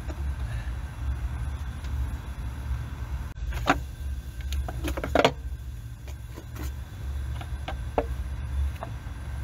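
Scattered light clicks and knocks of a valve cover being set down and seated onto the engine's cylinder head, with its gasket in place, over a steady low hum.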